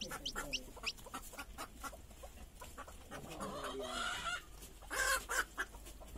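Desi chickens at a hatching nest: short, high, falling chick peeps in the first second, then hen clucking, with a louder scratchy burst about five seconds in.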